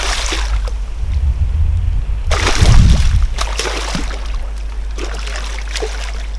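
A hooked pike thrashing and splashing at the surface as it is drawn in to the landing net: a splash right at the start, a bigger one about two and a half seconds in, then smaller splashes.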